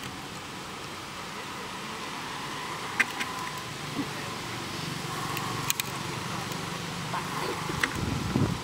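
A motor vehicle's engine rumbling, growing louder toward the end, over steady background noise, with a few sharp clicks.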